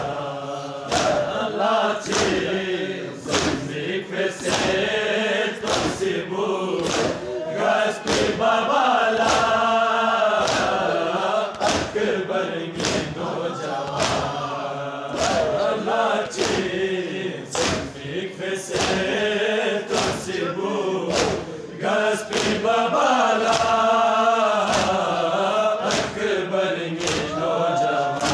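Crowd of men chanting a Balti noha, a Shia mourning lament, in unison, over a steady beat of sharp open-palm slaps on the chest (matam), about one and a half slaps a second.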